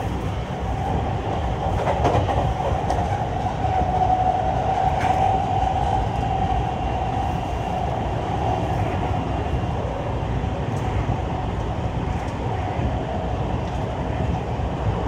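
JR West 223 series 5500-subseries electric train with Mitsubishi traction equipment running, heard from inside the car: a steady low rumble of wheels on rail under a steady whine from the motors and inverter, which drifts slightly lower toward the end. A few rail-joint clacks come about two seconds in and about five seconds in.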